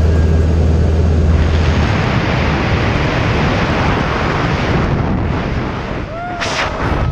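Loud wind rushing through the open door of a small jump plane at altitude. A low steady engine drone drops away about a second in as the rushing swells.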